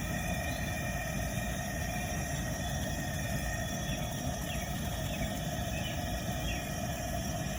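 Propane burner under the crawfish boil pot running steadily, a constant low rumble, with a few faint high chirps over it.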